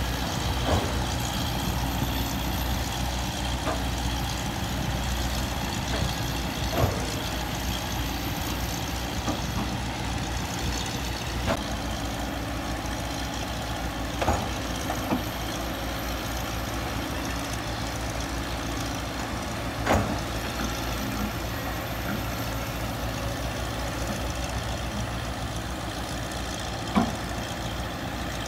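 Hydraulic excavator's diesel engine running steadily with a low rumble, with occasional sharp knocks every few seconds.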